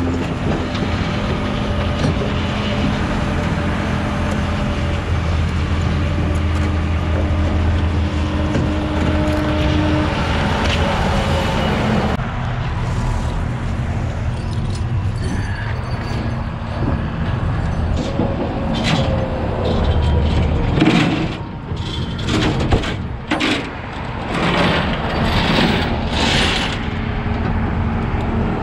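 Rollback tow truck's engine running steadily under load while its winch drags a car up the bed; the hum eases about twelve seconds in. In the second half come a series of metal clanks and chain rattles.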